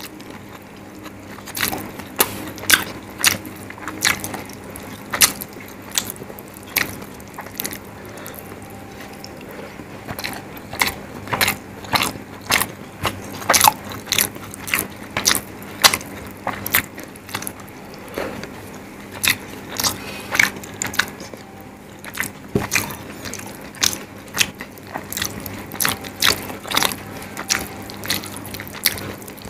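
Close-miked chewing of rice and curry eaten by hand: repeated sharp wet mouth clicks, irregular at about one or two a second, over a faint steady low hum.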